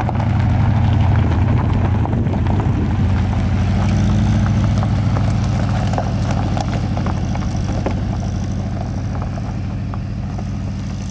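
Air-cooled flat-four engine of a Volkswagen Beetle running steadily as the car drives by on gravel, with tyres crackling over loose stones. The sound peaks about a second in and slowly fades as the car pulls away.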